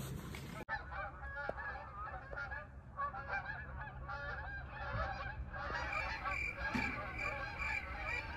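A flock of geese honking, many calls overlapping, starting suddenly less than a second in.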